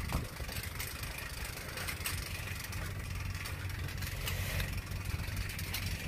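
An engine idling steadily with a low hum.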